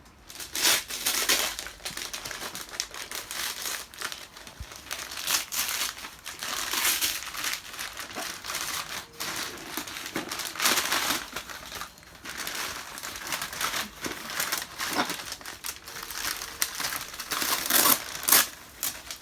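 Packing material in an opened parcel being crumpled and rustled by hand as the contents are dug out, in irregular bursts throughout.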